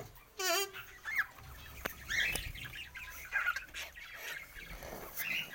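Poultry calling: a run of short, overlapping clucks and calls, the strongest one about half a second in.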